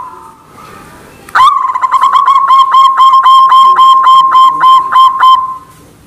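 White zebra dove (perkutut putih) cooing: one long call starts about a second and a half in, a steady tone overlaid with a rapid run of short staccato notes at about five a second, fading out near the end.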